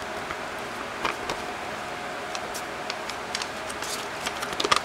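Scattered light clicks and taps of small items and packaging being handled, bunching into a quick flurry near the end, over a steady background hum.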